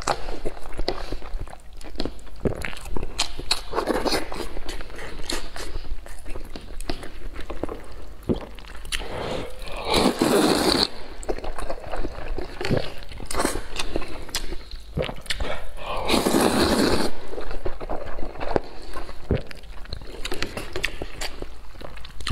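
Close-miked eating of rice noodles with chopsticks: wet chewing and smacking with many small clicks, and two longer, louder slurps of noodles, about ten and sixteen seconds in.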